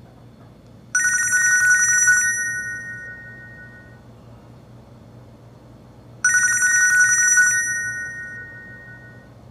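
Nokia E90 ringtone in the style of a telephone ring, sounding twice about five seconds apart. Each ring is a rapid trill of a little over a second that rings on and fades away over the next two seconds.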